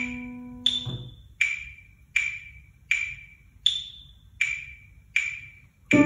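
Phone metronome app clicking steadily at 80 beats per minute, one woody click about every three-quarters of a second. A held digital piano note fades and stops about a second in, and piano notes come back in on the beat near the end.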